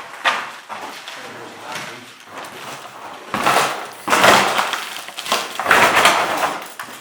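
Footsteps crunching and scraping over debris on an old wooden floor, loudest in a run of heavy crunches a little past the middle.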